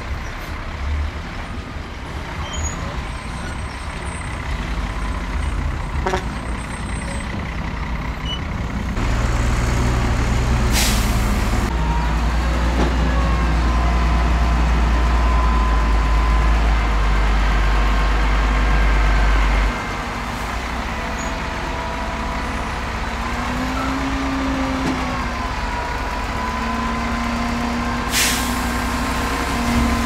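Heavy diesel dump truck engines running, with one engine revved hard for about ten seconds in the middle. Two short air-brake hisses come, one about eleven seconds in and one near the end.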